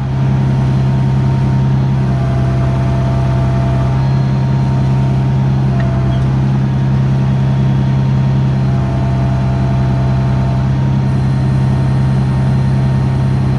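Backhoe engine running steadily under work, a loud even drone, with a fainter higher whine coming in and out twice as the arm and bucket are worked.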